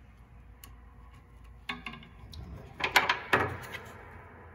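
Piano string wire clicking and scraping against the tuning pins and cast-iron plate of a Steinway Model A grand as it is handled during restringing. A few light clicks come first, then a quick cluster of sharp metallic clicks about three seconds in.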